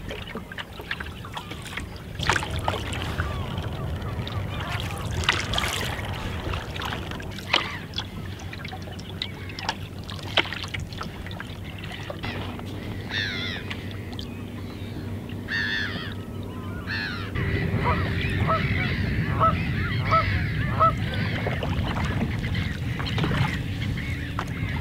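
Paddle strokes splashing and water lapping around a canoe, with water birds calling several times in the second half, ending in a quick run of about six short calls.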